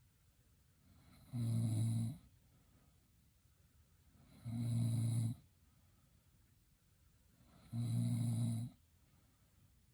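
A woman in her 40s snoring in her sleep: three snores about three seconds apart, each lasting about a second with a low, steady pitch.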